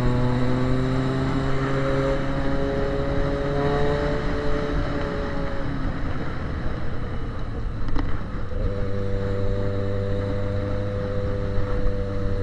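Yamaha XJ6's inline-four engine running through a straight pipe with no muffler as the bike is ridden. The note climbs gently over the first few seconds, breaks off with a click about eight seconds in, then holds steady.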